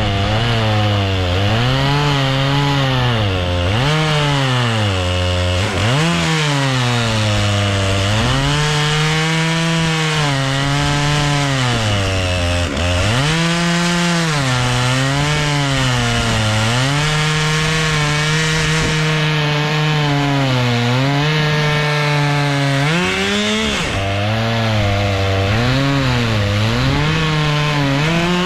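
Stihl MS 661 two-stroke chainsaw in an Alaskan chainsaw mill, ripping lengthwise through a white oak log at high throttle. The engine pitch sags under load and picks back up again and again as the saw is worked back and forth through the cut. At the very end the throttle is let off and the pitch falls away.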